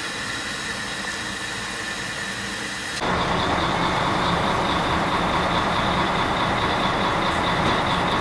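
Standing kkStB U-class narrow-gauge steam locomotive hissing steam steadily. The hiss turns abruptly louder about three seconds in and then holds steady.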